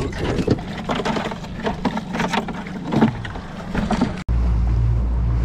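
Irregular knocks and clicks of a freshly caught bluefish being handled and unhooked aboard a small boat. About four seconds in, a sudden cut gives way to a steady low hum.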